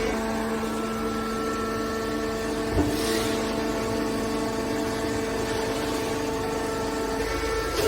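Hydraulic scrap baler running, a steady hum from its motor and pump, with a single knock about three seconds in.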